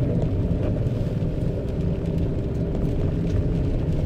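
Steady engine drone and road noise from inside the cab of a Fiat Scudo van on the move, low-pitched and even throughout.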